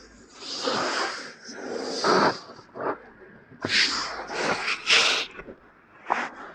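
Close-up ASMR ear-cleaning scratching at the microphone's ear, a series of irregular rubbing, scratching strokes each lasting under a second.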